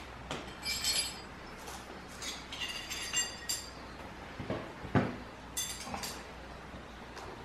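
Small metal hardware and tools clinking as they are handled, in a few short rattling clusters, with one dull thump about five seconds in.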